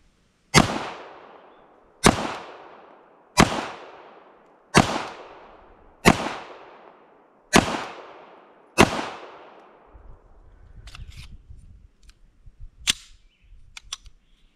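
Seven pistol shots from a SIG Sauer P226 Mk25 in 9mm, fired slowly and evenly about a second and a half apart, each with an echoing tail. A few sharp clicks follow near the end as the pistol is handled.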